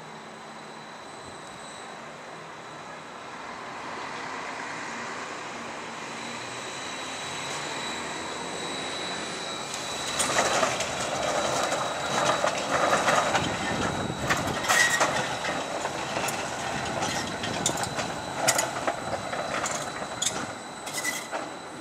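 Bombardier Flexity low-floor tram approaching on curved track and passing close by. Its running noise swells steadily, then from about halfway comes a louder stretch of wheels clattering over rail joints and points, with a couple of brief wheel squeals.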